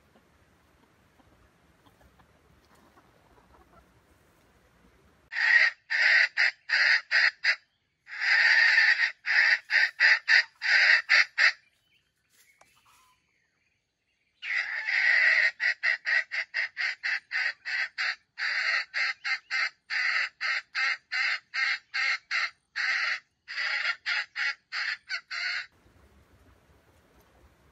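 Junglefowl giving rapid, harsh clucking calls, about three to four a second, in two long runs with a short break about twelve seconds in.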